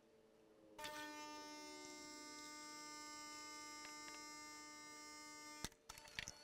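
Gaggia Babila super-automatic espresso machine running as it brews an espresso. A faint, steady electric hum starts about a second in and cuts off sharply near the end, followed by a few clicks.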